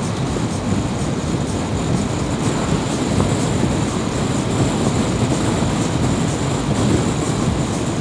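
Steady road, tyre and engine noise of a car being driven, heard from inside its cabin: an even low rumble with no distinct events.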